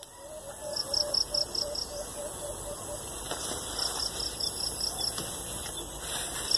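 Tropical forest insects: high-pitched trills in bursts of about a second that repeat every few seconds, over a steady high drone. In the first three seconds there is also a run of about a dozen low, evenly spaced notes.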